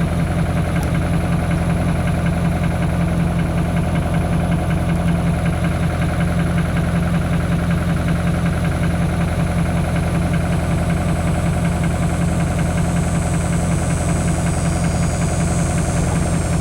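A steady low mechanical drone, like a motor running, holding an even level throughout.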